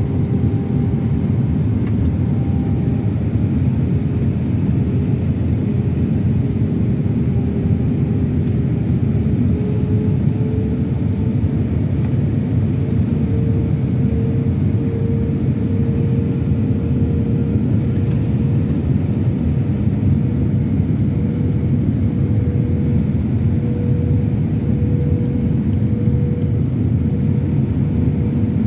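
Airbus A319-100 cabin noise heard from a window seat on approach: a loud, steady low rumble of the engines and rushing air. A humming tone in it rises slightly about ten seconds in and then holds steady.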